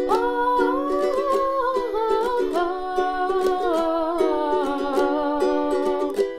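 Ukulele strummed with a capo in a steady rhythm, under a wordless sung melody that glides and wavers above the chords.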